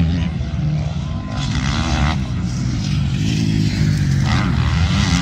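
MX2 motocross bikes racing, their engines revving up and down in pitch as they ride the track.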